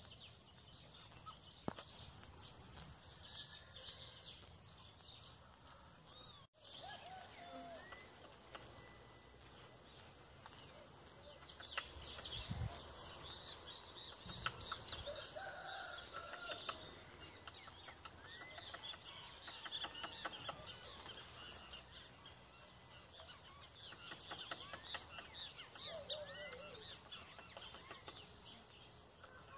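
Several small birds chirping and calling, with a few scattered faint taps and knocks, including a quick run of taps about two-thirds of the way through.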